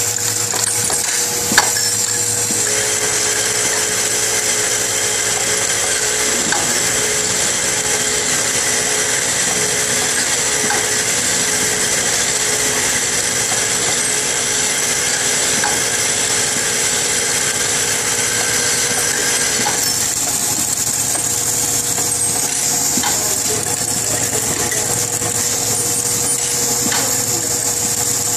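NTM-420 automatic tablet counting line running: a steady machine hum with a constant metallic clatter of small parts and aluminium tins on the conveyor. One sharp click comes about a second and a half in.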